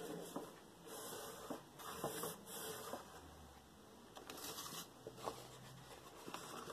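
Several short, soft rustles of white card stock sliding and flexing as it is handled and bent over a ruler's edge.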